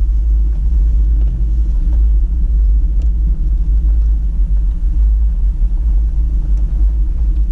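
Steady low rumble of a Toyota Tacoma pickup crawling up a gravel mountain trail, its engine and tyres heard from inside the cab.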